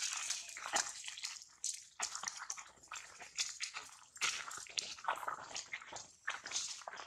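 Irregular rustling and crackling of dry fallen leaves under a walking monkey's feet.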